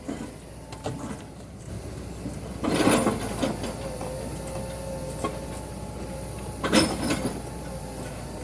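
Excavator running steadily with a faint hydraulic whine, with two louder clattering bursts of digging in rock, about three seconds in and again near seven seconds.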